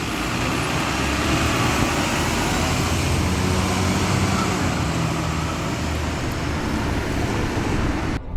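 Steady city street traffic: the running engines and tyre noise of passing vehicles, with a heavier engine drone through the middle. It cuts off abruptly near the end.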